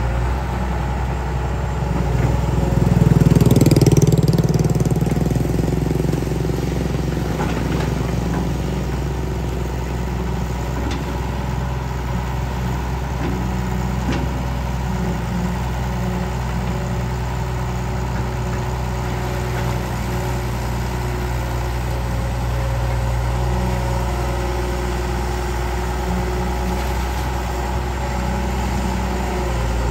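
Kobelco excavator's diesel engine running steadily as it digs canal mud. It swells louder for a couple of seconds near the start, as the engine takes up the load of the hydraulics working the boom and bucket.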